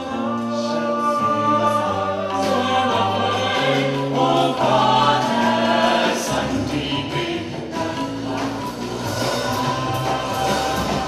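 Small vocal ensemble singing slow, held chords in harmony, the notes changing every second or two over a low bass line.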